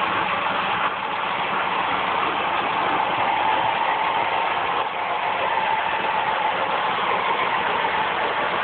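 O-gauge three-rail model train running along the track: a steady whirring hum of wheels and motor with no breaks.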